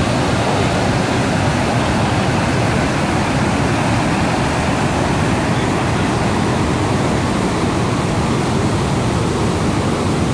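Muddy floodwater rushing out through the open sluice gates of a reservoir outlet and churning in the channel below: a steady, loud rush of water from a flood discharge after extreme rain.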